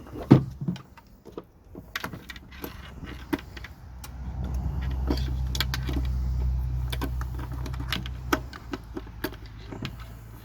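Light clicks and rattles of an HID bulb and its wiring being handled and twisted into a headlight housing. A low, steady rumble like a vehicle's engine comes in about four seconds in and stops about four seconds later.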